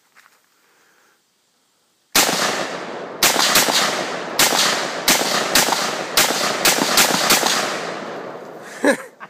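AR-15 semi-automatic rifle firing about a dozen and a half shots in quick, uneven succession after a couple of seconds of quiet, each crack trailing off in a long rolling echo. A short voice sound follows near the end.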